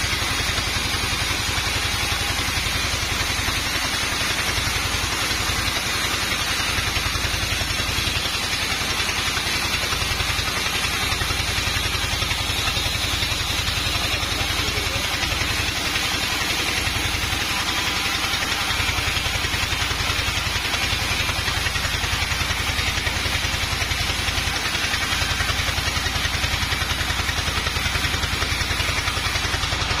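Band sawmill running steadily, its blade ripping lengthwise through a teak log, with a constant mechanical rumble and a hissing cutting noise.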